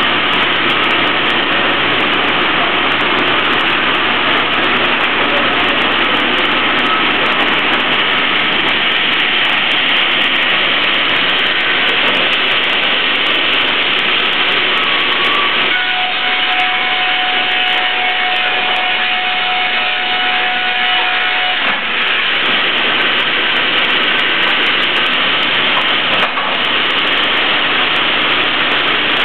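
Ustunkarli board edger running and sawing boards: a loud, steady, dense noise of saw blades and feed. Past the middle a steady whine rides over it for several seconds, then stops.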